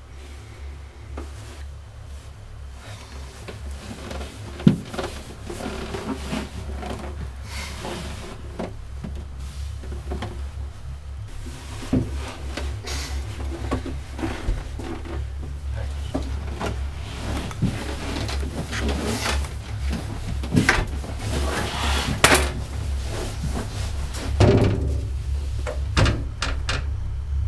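Horror-film sound design: a low, steady drone with scattered knocks and clicks, building in loudness. Near the end a door opens.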